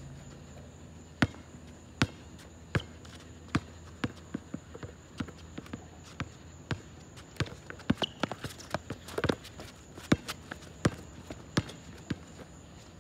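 Basketball bouncing on an asphalt court: single sharp bounces about a second apart, then quicker dribbling mixed with running footsteps in the middle stretch.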